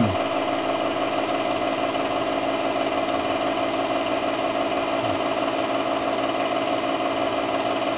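8mm film projector running with a steady mechanical whir and hum.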